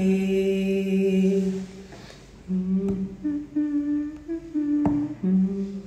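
A young man's unaccompanied voice holds the last sung note of a song line for about a second and a half, then, after a short pause, hums a few more notes of the melody.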